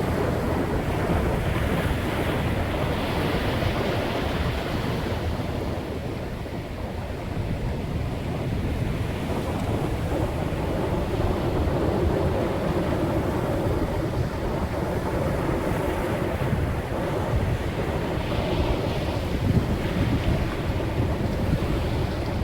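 Sea waves washing ashore, the surf swelling twice, a few seconds in and again near the end, with wind rumbling on the microphone.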